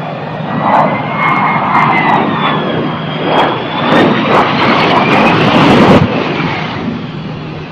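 Jet aircraft engines running loud, a dense rushing noise with a high whine that glides slightly up and down. It swells through the middle and drops off suddenly about six seconds in.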